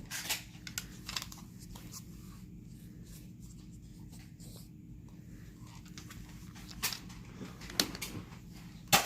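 Nerf blasters being handled and fired: scattered clicks and knocks, the sharpest just before the end, over a steady low hum.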